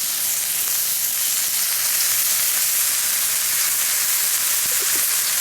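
Steak sizzling steadily in a hot frying pan.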